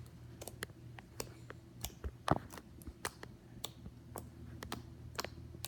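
Slime being squeezed and poked by hand, making irregular small clicks and pops, with one louder pop a little over two seconds in. A faint steady low hum lies underneath.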